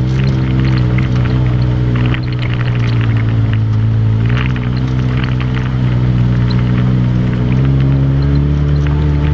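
Off-road ATV engine running while riding, its pitch dropping about two seconds in, climbing again around four and a half seconds, and rising once more near the end. Scattered ticks and crackles sound above it.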